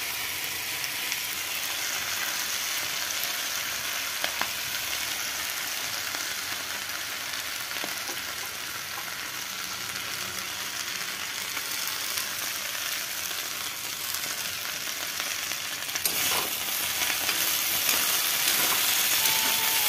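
Potato sticks and green peppers sizzling steadily as they stir-fry in a small kadai on a gas burner, with a steel spoon scraping and now and then tapping against the pan.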